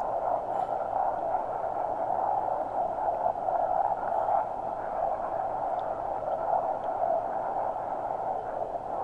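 Steady rush of wind and road noise from a moving motorbike, picked up by the rider's microphone, with no clear engine note above it.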